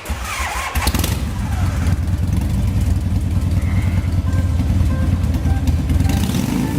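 A motor vehicle engine starting with a sudden burst, then running with a steady low rumble.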